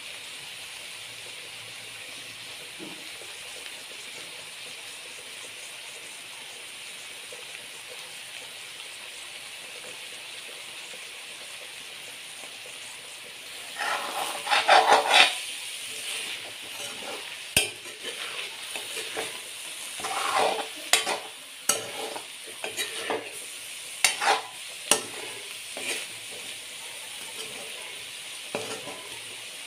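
Cauliflower and egg stir-fry sizzling steadily in a pan. About halfway in, a steel spoon starts stirring and scraping the food against the pan in repeated strokes with occasional clinks.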